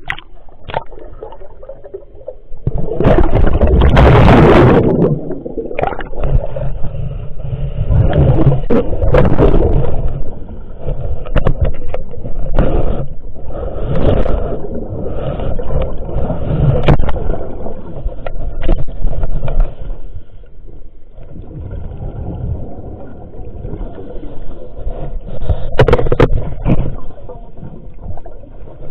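Water gurgling and bubbling in swells every few seconds, loud and low, as heard with the microphone under water.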